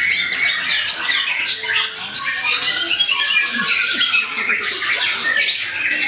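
Many caged songbirds singing at once in a bird-singing contest: a dense, loud jumble of overlapping chirps, whistles and rapid trills.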